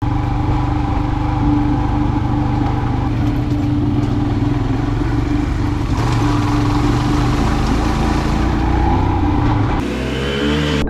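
Motorcycle engine running steadily under way, with a low rumble and noise. Near the end the sound changes abruptly and the engine pitch rises.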